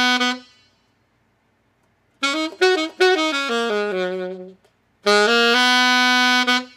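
Saxophone playing a short melodic phrase: a held note dies away, then after a pause comes a quick run of several notes ending on a lower held note, then a short note steps up to a long held note that cuts off near the end.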